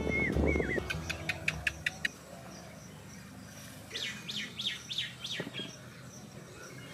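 Small birds chirping: a few short curved calls at the start, a quick run of sharp chirps about a second in, and a group of falling chirps around four to five seconds in.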